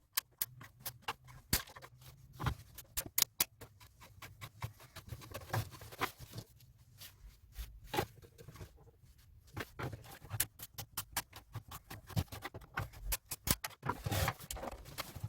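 Irregular clicks, taps and small knocks of hands and a tool working on an old cassette tape recorder's plastic casing, loosening screws and handling parts while taking it apart.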